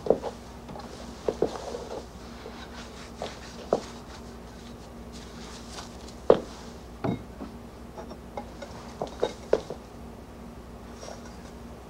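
Scattered light knocks and clinks of small objects being handled and set down, at irregular intervals, over a faint steady low hum.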